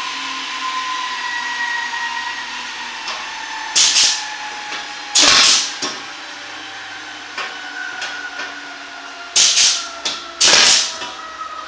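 Workshop machinery running steadily with a slowly falling whine, broken by four short, loud hissing bursts.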